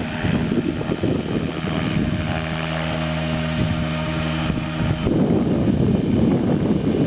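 Gusty wind buffeting the microphone, with the steady hum of an Align T-Rex 600E Pro electric RC helicopter's motor and rotors coming through clearly from about two seconds in until about five seconds in.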